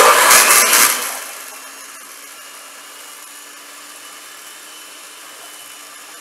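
Electric hand mixer switched on, its beaters churning through sticks of room-temperature butter loudly for about the first second. It then settles into a steady motor hum.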